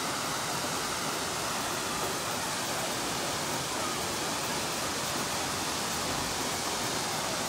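Steady rushing noise of a rain-swollen waterfall in spate, muddy water pouring down a cliff face, even and unbroken.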